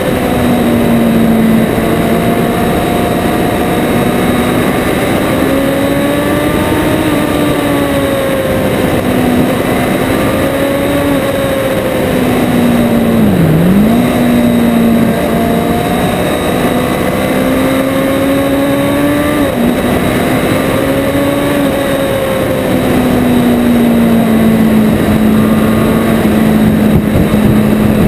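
Motorcycle engine running at speed, heard from a camera mounted on the bike. Its note wanders up and down with the throttle, dips sharply and comes back about halfway through, and drops suddenly a little later, over a steady rush of wind noise.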